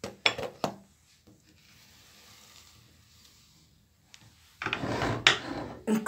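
A few light clinks near the start. Then, about four and a half seconds in, a steel cooking pot scrapes and knocks as it is lifted off the stove to be poured.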